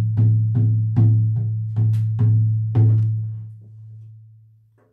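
Hide frame drum struck with a padded beater: steady beats at about two and a half a second, each with a deep booming ring. The drumming stops a little under three seconds in and the last beat rings on and fades away.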